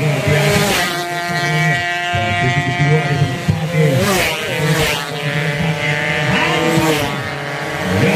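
120cc underbone racing motorcycles going past one after another at high revs, engine pitch sweeping up and then dropping as each passes close, with passes about a second in, around four and five seconds in, and near seven seconds.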